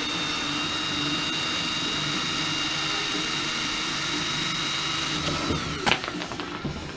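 Electric drill spinning a wire brush against a rusty hammer head to strip the rust, running at a steady high whine with a scrubbing rasp. The motor winds down about five and a half seconds in, and a sharp knock follows.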